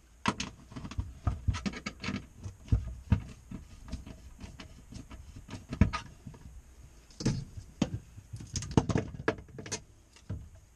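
Irregular clicks, knocks and short scrapes of hand work: a small inverter remote switch panel being held up and fitted to the underside of a wooden shelf with a hand screwdriver.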